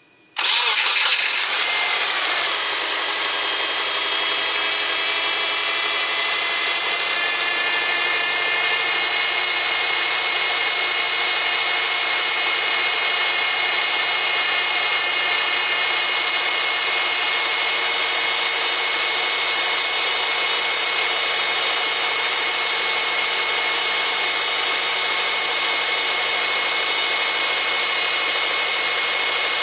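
Subaru EJ253 2.5-litre flat-four engine running steadily, with a sharp onset about half a second in; a whirring hum with high hiss, its pitch settling over the first few seconds.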